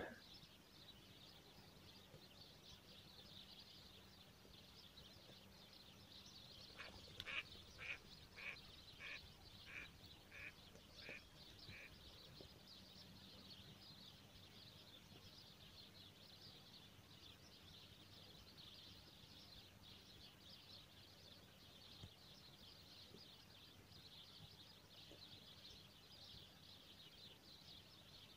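Near-silent waterside background with a faint steady high hiss. About seven seconds in, a duck quacks about eight times in quick succession, each quack fainter than the last.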